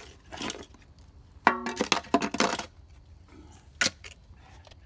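Steel shovel digging in soil: a sharp metallic clang with a brief ring about a second and a half in, followed by scraping and crunching of dirt, and another sharp knock near the end.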